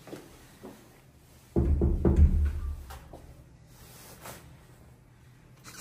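A sudden low bump with a short rumbling tail about a second and a half in, with a few faint clicks around it.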